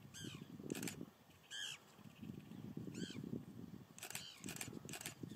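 African elephants feeding close by in tall dry grass: low, crackly rustling and crunching in repeated bursts, with short chirping bird calls above it and a run of sharp clicks about four seconds in.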